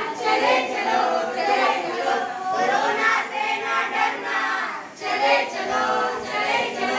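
A group of young voices singing together in chorus without accompaniment, a sung line leading into the play's second rule.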